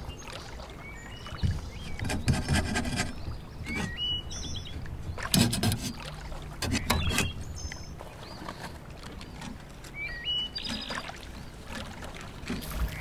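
Small birds chirping now and then in short rising notes over a steady low outdoor rumble, with soft handling sounds from raw bacon strips being wrapped around a thick burger patty on a wooden cutting board.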